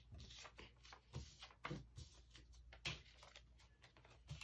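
Faint scattered taps and rustles of paper cut-out puppets on sticks being picked up and handled on a tabletop, over near-silent room tone.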